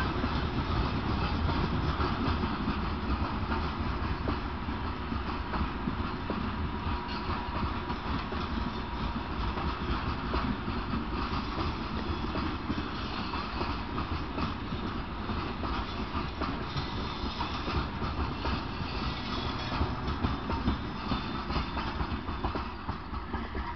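Freight train's open-top gondola wagons rolling past close by: a steady rumble of steel wheels on rail, with the clack of wheelsets over the rail joints. It eases off near the end as the last wagons go by.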